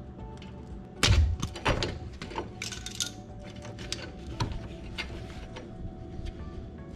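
Light metallic clicks and clinks of drum-brake hardware handled and pried at: the horseshoe clip worked off and the parking-brake arm separated from the rear brake shoe, with a louder knock about a second in.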